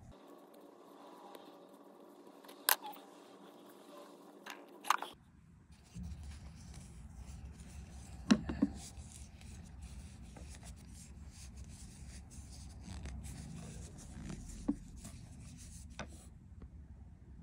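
Faint handling of crocheted yarn and a metal crochet hook: soft rubbing with a few sharp clicks, two close together about eight seconds in.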